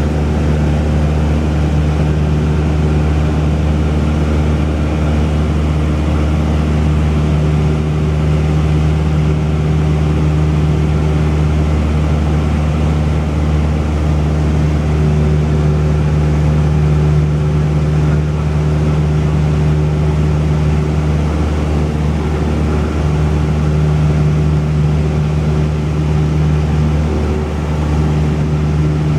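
Cessna 172's single piston engine and propeller droning steadily in flight, an even low hum with no change in pitch.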